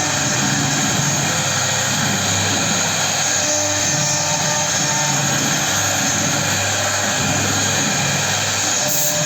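CNC cutting machine running steadily while it cuts a jali panel: an even mechanical drone with a low hum and a bright, hissing top.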